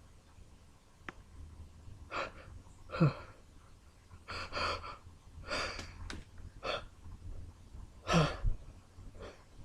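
A person's sharp, gasping in-breaths and sniffs, about seven or eight short bursts spread over several seconds: the build-up of a sneezing fit just before the next sneeze.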